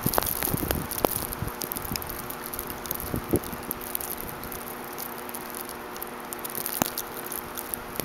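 Outdoor snowstorm ambience: a steady hiss with scattered light ticks, and a few muffled low thumps in the first second or two.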